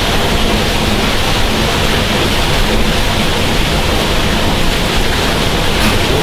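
Vertical-shaft hydroelectric generating unit running, its rotor and shaft spinning: a steady, loud rushing noise.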